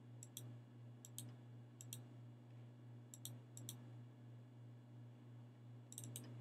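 Computer mouse button clicking: soft paired double-clicks about once a second, over a faint steady low hum.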